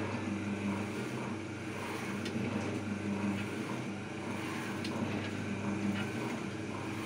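Automatic cup screen-printing machine running: its electric motor and worm-gear reducer hum steadily while the screen and squeegee carriage shuttle along its rail, with a few faint clicks.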